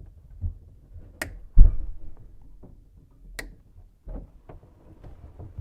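Hand tools and faucet parts being worked under a kitchen sink: two sharp clicks about two seconds apart, a loud dull thump just after the first click, and soft knocking and handling throughout.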